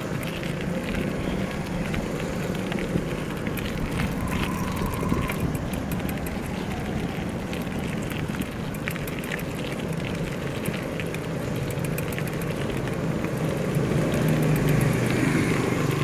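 A motor vehicle engine running steadily under street and traffic noise, growing louder near the end.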